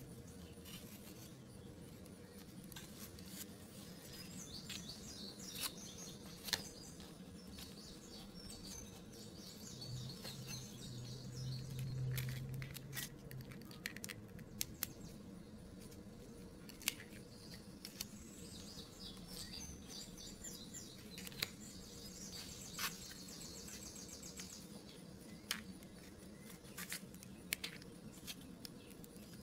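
Fingers handling and pressing together the pieces of a cardboard 3D-puzzle train engine: scattered small clicks and taps over soft rustling.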